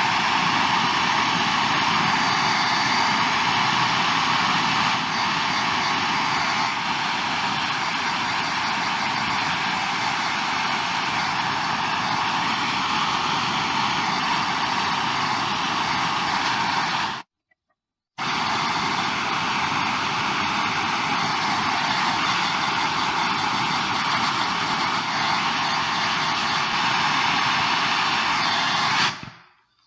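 MAP-Pro gas hand torch burning with a steady hiss while heating the steel bar. It breaks off for about a second midway and stops shortly before the end.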